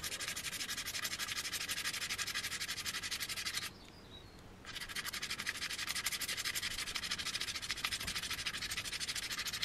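White tailor's chalk scraped back and forth across rows of razor blades set in wood in a homemade chalk-sharpening box, a fast, even rasp as the blades pare the chalk to a fine edge. The scraping stops for about a second partway through, then starts again.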